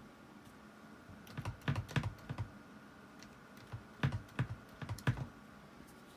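Computer keyboard keys being typed in two short bursts, about a second in and again about four seconds in, over a faint steady hum.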